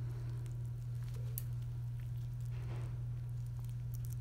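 Steady low hum under faint wet squishing and small clicks as a lipoma's fatty tissue is worked through a skin incision with gloved fingers and surgical instruments, with a soft brief rush about two and a half seconds in.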